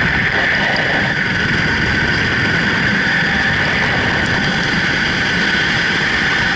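Loud, steady rush of freefall wind buffeting the microphone of a camera worn by a skydiver.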